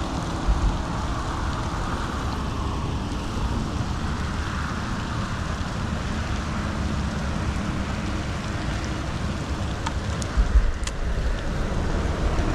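Steady rain falling on the water and the boat, an even hiss, with a couple of low bumps on the microphone about half a second in and again around ten seconds, the second joined by a few light clicks.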